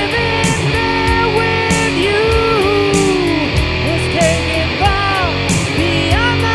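Rock instrumental passage: a lead guitar plays a melodic line with bent, sliding notes over bass and drums with regularly repeating cymbal hits.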